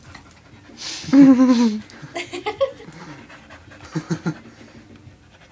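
Dogs at play: a dog gives one loud, drawn-out vocalization with a wavering pitch about a second in, followed by shorter sounds a second later and three quick ones near four seconds, over panting.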